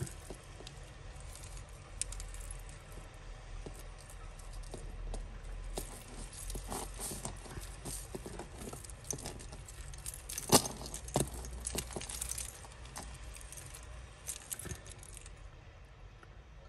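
Metal costume jewellery jingling and clinking as necklaces and chains are handled and pulled apart, with a couple of sharper clacks about two-thirds of the way through.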